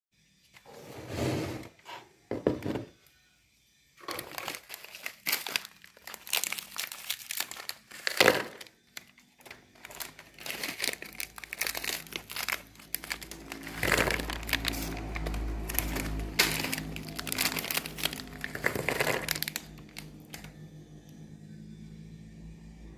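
Crisp wafer sticks crackling and cracking in short bursts, then an electric meat grinder's motor running steadily from about ten seconds in as it crunches the wafers, the crunching thinning out near the end.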